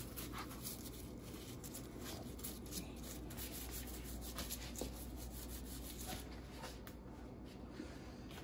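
Faint rubbing and scratching of plastic-gloved hands working dry seasoning into the skin of a whole scored tilapia on a plastic cutting board.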